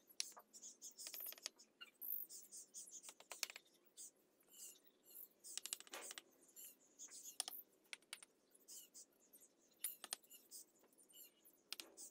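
Faint, irregular clicks and clinks of fired-clay bricks knocking together as they are picked up and set on a brick wall, with light hammer taps settling them into place.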